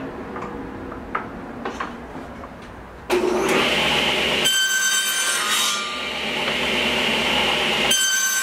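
Table saw cutting a groove into a small square block. The motor hums at first; about three seconds in the blade bites with a sudden loud rasping cut that settles into a high whine.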